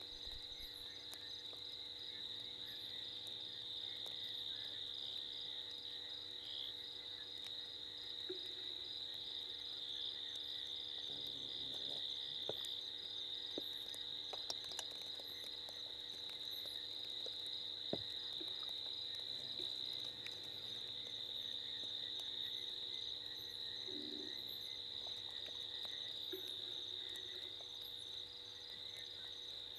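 Night chorus of insects: a steady high trill, with a second insect pulsing rapidly above it. A few short, low frog croaks come in scattered through it.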